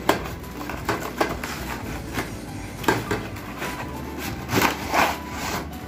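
Cardboard box being torn open and pulled apart by hand, rustling and ripping in irregular bursts, loudest about three seconds in and again near the end.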